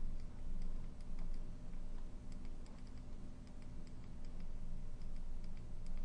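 A low, steady hum with faint, irregular light clicks scattered through it, from a computer workstation in use.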